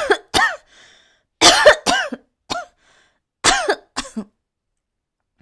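A young woman coughing in a run of short fits of two or three coughs each, the coughs voiced and ending about four seconds in. The coughs are put on deliberately, not from illness.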